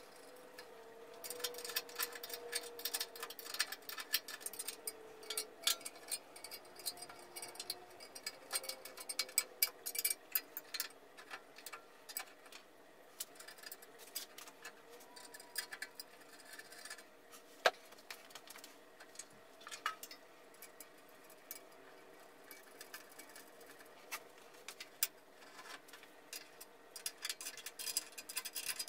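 Runs of rapid small metallic clicks and ticks from screwing the bandsaw's metal table onto its trunnions, heaviest over the first third and again near the end, with one sharper click about halfway.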